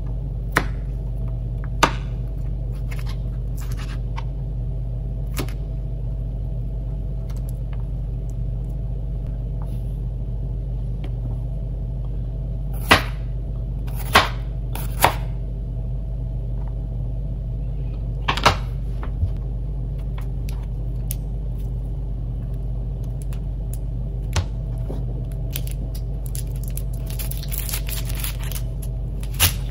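Chef's knife knocking now and then on a plastic cutting board while chopping celery, garlic cloves and an onion, over a steady low hum. The sharpest knocks come in a cluster about halfway through.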